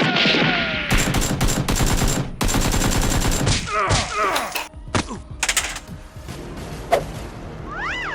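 Gunfire sound effects: a dense volley of rapid shots for about three seconds, then scattered single shots with some falling whizzes.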